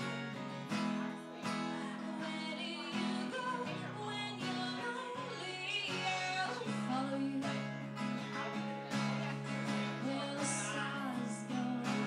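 A woman singing a slow song while strumming steady chords on an acoustic guitar.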